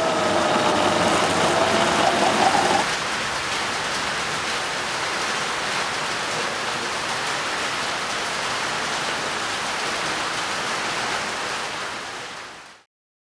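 A steady rushing hiss with a faint held tone over it for the first few seconds; it fades out shortly before the end.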